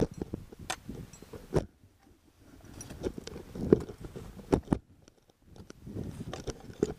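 Crampons crunching and scraping into snow with an ice axe being planted, as a climber steps up a snowy ridge, in three bursts with short pauses between them.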